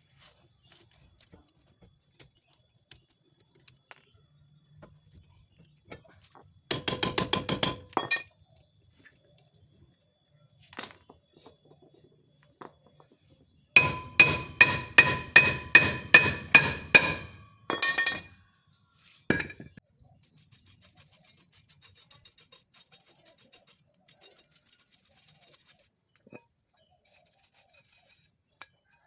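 Metal struck against metal in two runs of ringing clinks: a quick flurry, then a longer series of about three strikes a second, followed by a few single knocks, as brake parts are worked on.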